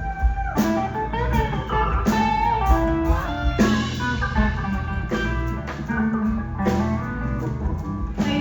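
Live blues-rock band playing an instrumental passage: electric guitar lead with bent notes over bass and drums.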